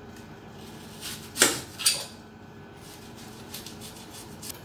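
Kitchen knife cutting a green apple held in the hand, with a loud sharp knock about a second and a half in and a smaller one just after, followed by a few faint ticks.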